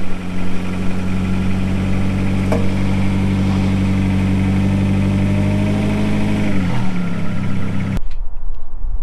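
2001 Ford Escort ZX2's four-cylinder engine idling steadily with the freshly reinstalled starter, then shut off about seven seconds in, its hum dropping in pitch as it winds down. A few sharp clicks follow in the last second.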